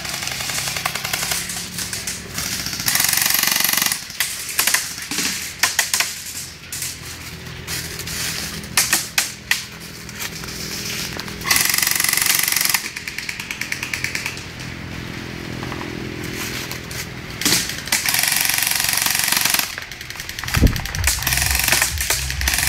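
Airsoft electric rifles firing full-auto, several bursts of rapid rattling shots each lasting a second or so, with single shots and clicks between.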